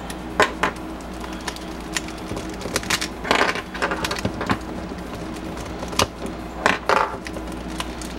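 Plastic clicks and clacks of a Yuxin Kylin V2M 3x3 speedcube being taken apart by hand, pieces pried and popped out of it at irregular intervals. Two brief scraping rustles come about three seconds in and again near the end.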